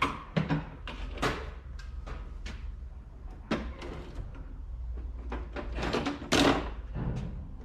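Irregular plastic clicks and knocks of hands working at a stuck radiator-fan wiring connector to pull it loose, over a low steady hum.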